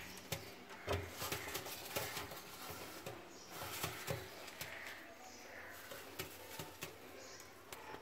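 Pigeons shuffling on the floor of a small box: irregular light taps and scuffs of their feet, with a few soft thumps.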